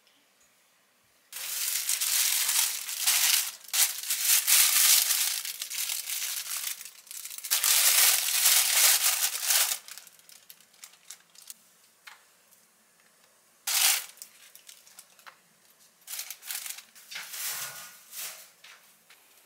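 A thin plastic bread bag holding a baguette crinkling loudly as it is handled, for about eight seconds, then a short burst and a few shorter crinkles near the end.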